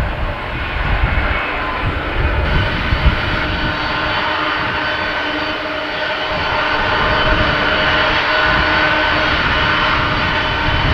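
Jet engines of a Boeing 747-400F freighter at taxi power: a steady roar with several steady whining tones on top. The sound grows slightly louder in the second half as the aircraft turns toward the listener.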